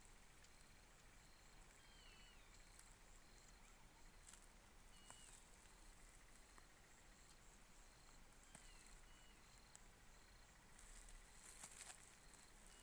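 Faint outdoor ambience with a bird's short falling chirps repeating every few seconds, and a few faint clicks.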